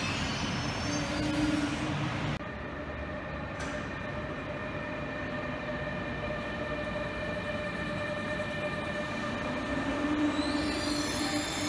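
Electric passenger trains in a station: a steady hum and whine of traction equipment with several level tones. About ten seconds in, high squealing tones come in as wheels squeal on the rails.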